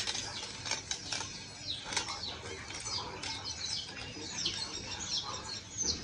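Small birds chirping, many short falling chirps repeating throughout, with a few sharp clicks in the first two seconds from the tripod's clamp being handled.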